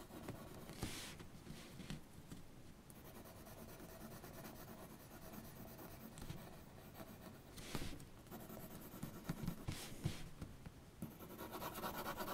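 2B mechanical graphite pencil scratching across paper in short hatching strokes, faint, with a few louder strokes and denser scratching near the end.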